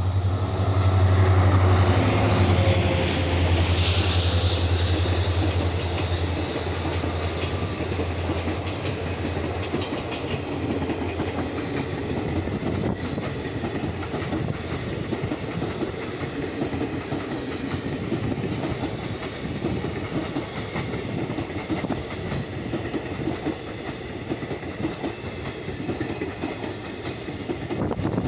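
A WDP4D diesel locomotive, with an EMD two-stroke engine, passes close by: a deep engine drone and a high whine that falls in pitch, loudest in the first few seconds and fading by about ten seconds in. Then the passenger coaches roll past with a steady rumble and clickety-clack of the wheels over the rail joints.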